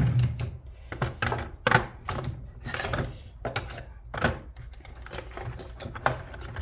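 Hand tools, screwdrivers and wrenches, clattering and knocking against each other and the sides of a plastic drawer as they are rummaged through: a string of irregular clicks and clunks.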